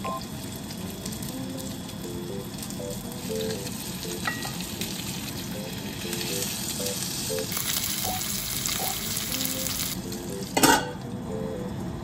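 A block of meat searing in a frying pan, sizzling, building up and strongest as it is turned with tongs, then stopping abruptly near the end. A short clank follows as a lid goes onto the pan.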